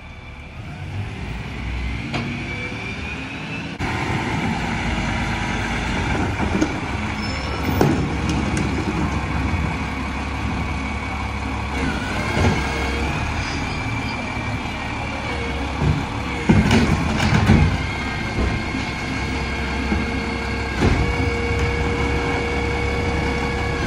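Mack LR garbage truck engine running steadily with the McNeilus rear-loader packer hydraulics working, several sharp bangs and knocks as recycling bins are tipped into the hopper, loudest about two-thirds of the way through.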